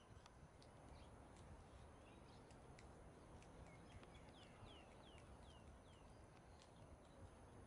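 Quiet open-air hush with a faint run of about five short, high chirps, each falling in pitch, a little past halfway through.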